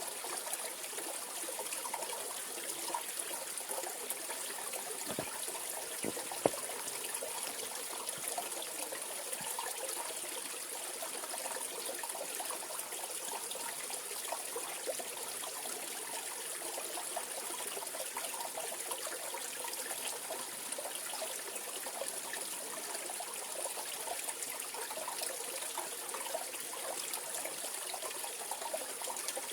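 Mountain valley stream running over rocks: a steady rush and trickle of water. One brief sharp click about six seconds in.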